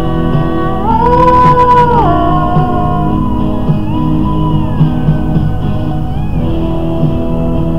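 Music playing: a guitar-led instrumental passage with a steady beat, and one long held note about a second in.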